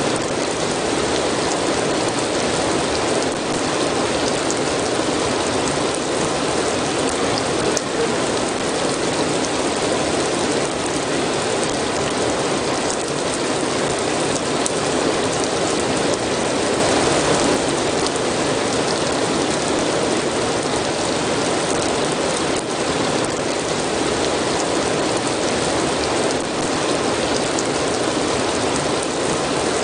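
Steady rain falling, a dense even hiss of pattering drops with scattered individual drop ticks, swelling slightly about halfway through.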